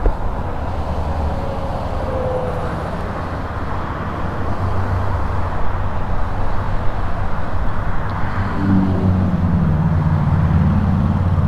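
Highway traffic running past, a steady rushing noise with a low engine hum under it, getting somewhat louder in the second half.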